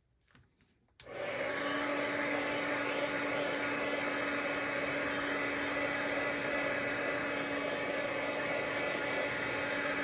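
A handheld hot-air dryer clicks on about a second in and runs steadily, a constant blowing hiss with a steady hum.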